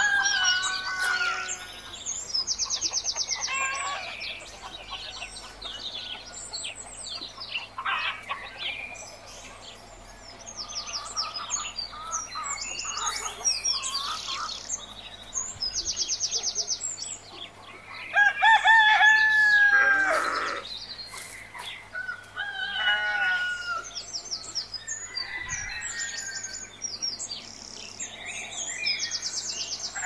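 Farmyard bird sounds: a rooster crows loudly about two-thirds of the way through, with hens clucking and small birds chirping and trilling throughout.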